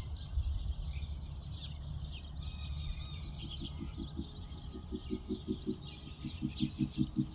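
Tūī and bellbirds singing, a busy run of short chirps and whistled notes over a low rumble. From about three seconds in, background music comes in under them with a pulsing low note.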